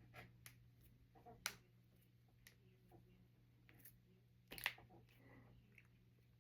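Finger knuckles cracking: a handful of sharp pops, the two loudest about one and a half and four and a half seconds in, with fainter clicks between them, over a faint steady low hum.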